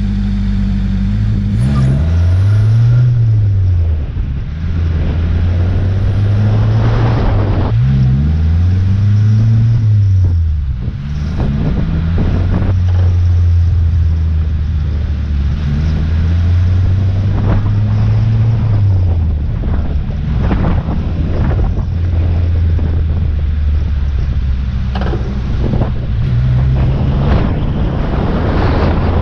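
A 1985 Toyota 4A-GE 1.6-litre twin-cam four-cylinder in a 1969 Toyota Corona, driven on the road. The engine's pitch rises and falls twice as the car accelerates and eases off, then holds steady at cruise, dropping to a lower steady note about two-thirds of the way through.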